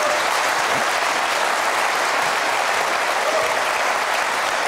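Studio audience applauding, a large crowd clapping steadily.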